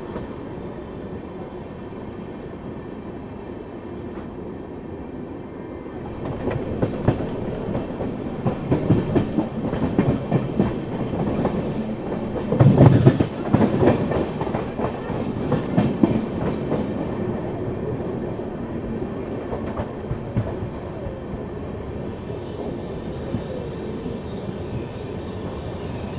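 Express train's coaches rolling along the track, heard from the open coach door. A steady rumble becomes a long run of loud wheel clatter and clicks from about six seconds in, loudest around halfway. It then settles into a steadier, quieter run as the train draws into a station platform.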